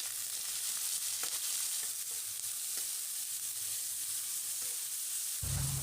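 Chopped onions, curry leaves and crushed garlic sizzling steadily in hot oil in a kadai as they sauté, with a few faint ticks of a stirring spoon.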